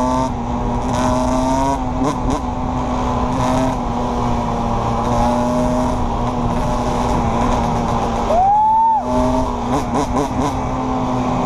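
Yamaha YFZ450 quad's single-cylinder four-stroke engine revving up and down as it is held in a wheelie, with one sharp rev a little past eight seconds. A second engine drones steadily underneath, and wind buffets the microphone.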